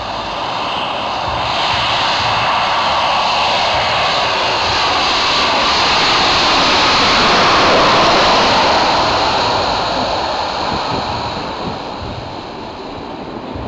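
Boeing 737 jet engines as the airliner passes low overhead on final approach to land. The engine noise builds to its loudest about halfway through, then fades as the plane moves away toward the runway.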